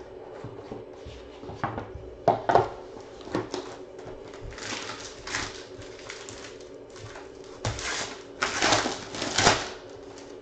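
A 2015-16 Court Kings basketball card box being opened and its foil pack torn open: a few sharp snaps early on, then the foil wrapper crinkling in several loud rushes, the loudest near the end.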